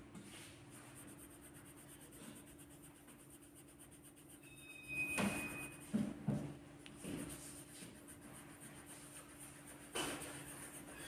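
Faint scratching of a coloured pencil shading on paper. A brief high squeak comes about five seconds in, followed by a few soft knocks, and a sharper tap comes near the end.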